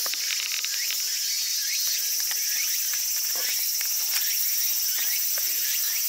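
Outdoor insect chorus: a steady high-pitched drone with many short, falling chirps over it.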